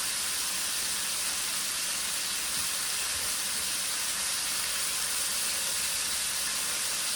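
Tri-tip steaks sizzling steadily in butter in a frying pan, an even, unbroken hiss.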